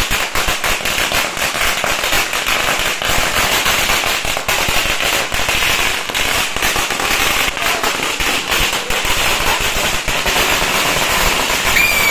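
Firecrackers going off in a rapid, continuous crackle: dozens of sharp pops packed close together without a break.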